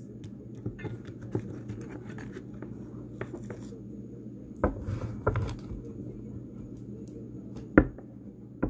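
Tarot cards being handled and set down on a table: scattered light clicks, scrapes and taps, with sharper knocks a little before halfway, about halfway and near the end, over a steady low hum.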